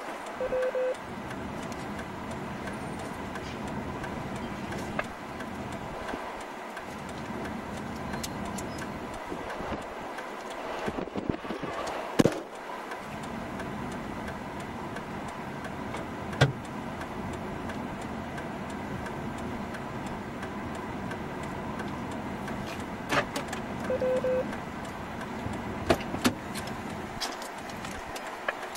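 Steady hum of an idling vehicle with a few sharp clicks, and two short beeps at the same pitch, one just after the start and one near the end.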